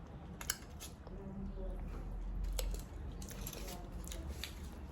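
A person eating crab: faint chewing with scattered small clicks and a soft, low muffled rumble in the middle.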